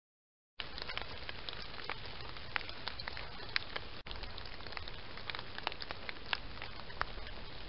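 Steady hiss from a trail camera's built-in microphone, with many small scattered crackles and clicks. It starts abruptly about half a second in and cuts out for an instant about four seconds in.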